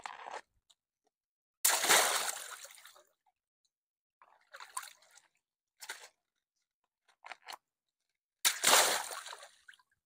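Water balloons bursting twice, each a sudden loud pop followed by a rush of water splashing down into a pool of water and dying away over about a second. Smaller splashes and drips come between the two bursts.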